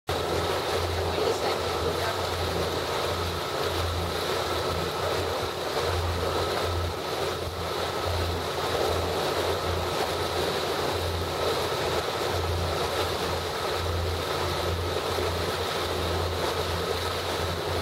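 Motorboat's engine running steadily underway, with water rushing past the hull and wind gusting on the microphone in a low rumble that comes and goes.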